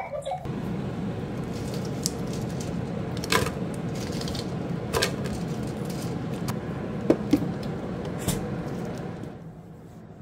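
A steady low whir with a handful of light, sharp clicks of dried sweet potato and sweet pumpkin slices dropping into a plastic storage container. The whir drops away near the end.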